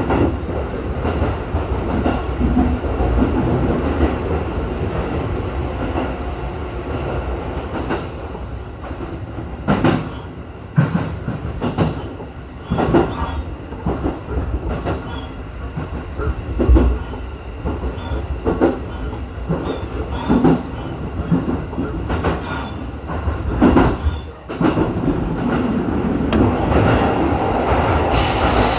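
Electric commuter train running along the track, heard from inside the front car: a steady rumble with the wheels clacking over rail joints roughly once a second through the middle stretch.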